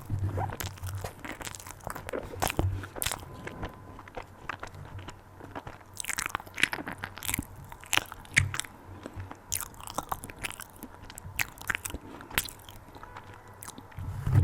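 ASMR eating sounds: biting into and chewing a cream puff, its crust crunching in irregular crackles and clicks.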